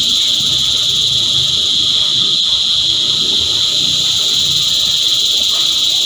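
Cicadas chorusing: a loud, high, unbroken buzz that holds steady throughout.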